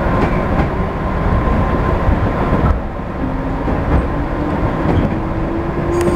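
Electric commuter train running on the line, heard from inside the driver's cab: a steady rumble of wheels on rail with a few clacks over rail joints and points. Short humming tones from the traction motors come and go over the rumble.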